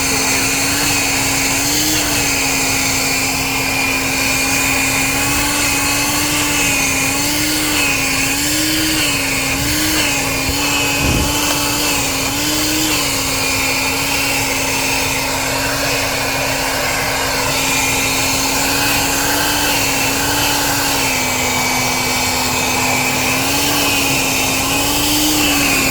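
1980s Bon Aire one-gallon wet/dry shop vac running steadily with a motor whine whose pitch rises briefly many times. There is one low thump partway through.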